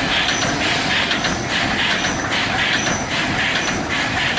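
CNC welded wire mesh machine for 2–4 mm wire running in production, welding cross wires onto the line wires and stepping the mesh forward. Its working cycle makes a steady, rhythmic mechanical clatter, repeating a little faster than once a second.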